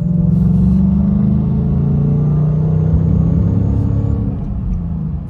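Whipple-supercharged 5.0 V8 of a Mustang GT running with a deep, steady engine note that eases off somewhat near the end.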